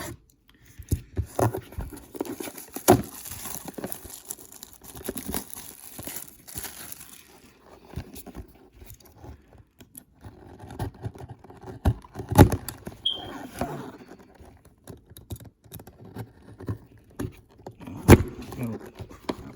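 Hands opening and handling a trading-card box: packaging crinkling and tearing, with a run of short taps and knocks.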